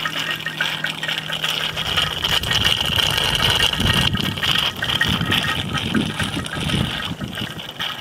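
Vacuum oil extractor drawing used engine oil out of a Tecumseh lawnmower engine's sump through a thin tube down the dipstick tube: a steady hiss of air and oil being sucked into the canister, with uneven gurgles.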